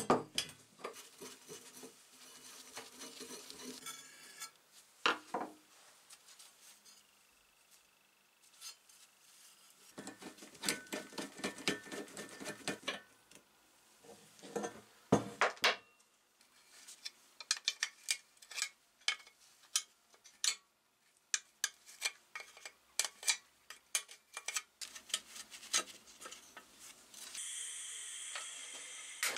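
Metal parts and hand tools clinking, clattering and scraping as an old brass blowtorch is taken apart on a wooden workbench, with short knocks and one brief metallic ring. Near the end a handheld gas torch starts up with a steady hiss.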